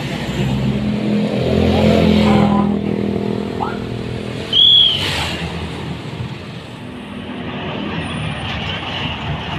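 Roadside traffic passing close: vehicle engines swell as one goes by about two seconds in. About four and a half seconds in comes a brief high-pitched squeal, the loudest sound. After it, a steady hum of traffic.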